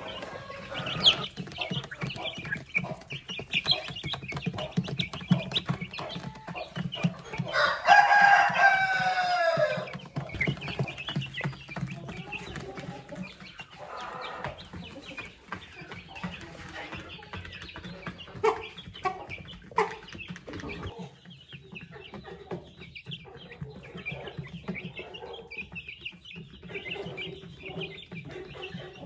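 Young chickens clucking and cheeping as they feed, with many short calls throughout. A rooster crows once, loudly, about eight seconds in, its call falling in pitch at the end.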